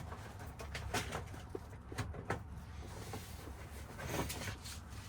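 Scattered light clicks and taps of small parts and kit containers being handled on a workbench, over a steady low hum.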